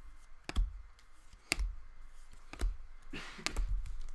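Upper Deck hockey cards being flipped through by hand: three sharp clicks about a second apart as each card is slid to the back of the stack, then a brief rustle near the end.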